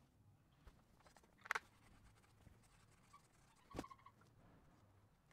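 Near silence: faint room hum with a few small clicks or taps, two of them plainer, a couple of seconds apart.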